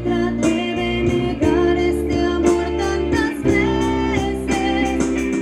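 Live band playing a slow ballad: guitar leads over sustained bass and chords, with a beat landing about once a second.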